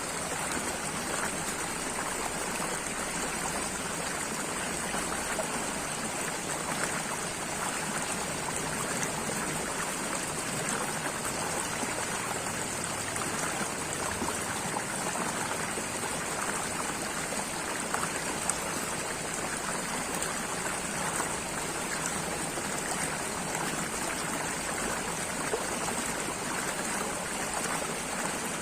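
Running water flowing steadily, an even trickling rush with no pauses or changes.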